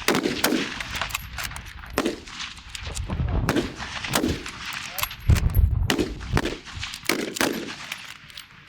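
Rifle fire from several shooters along the firing line: a ragged run of sharp cracks at irregular spacing, with one heavier, closer shot with a deep boom about five seconds in.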